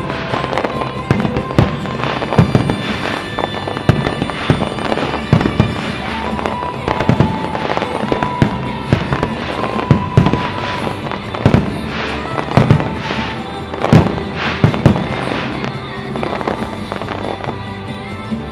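Fireworks bursting in quick, irregular succession over background music, with the bangs thinning out near the end.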